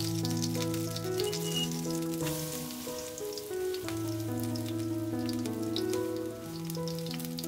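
Spinach-and-pepper jeon batter sizzling as it fries in a pan, a fine crackle of many tiny pops, under instrumental background music with held notes.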